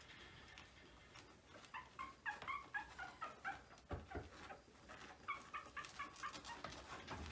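Young Maltese puppies squeaking and whimpering in two quick runs of short, high cries, with a soft thump about halfway through and another near the end.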